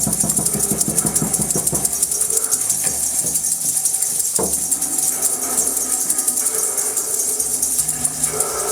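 Shaken hand percussion, rattles or a tambourine, shaken quickly and steadily, making a continuous bright rattling shimmer.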